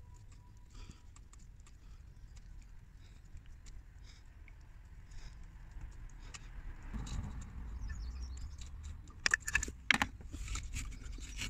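Light clicks and clatter of small metal engine parts being handled, with a few sharp, louder clicks a little before the end.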